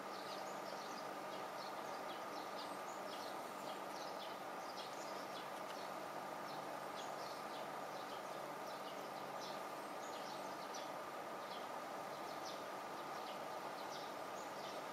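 Small birds chirping: short high chirps a few times a second, over a steady background hum with a constant tone.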